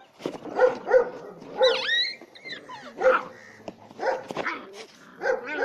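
Dogs barking and yelping in short calls about once a second, with a high, rising whine about two seconds in.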